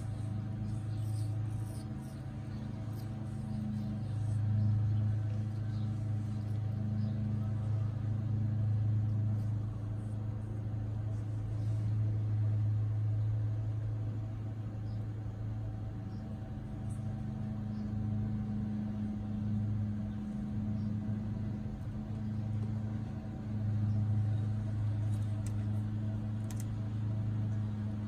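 Steady low hum of a running motor, with a few faint clicks above it.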